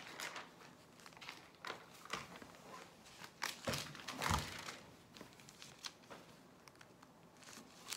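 Faint rustling and crinkling handling noises with scattered small clicks and knocks, the loudest a little past four seconds in.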